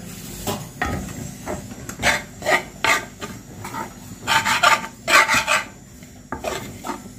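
A steel spoon scraping and stirring a crumbly gram-flour (besan) zunka mixture against a metal pan, in irregular rasping strokes.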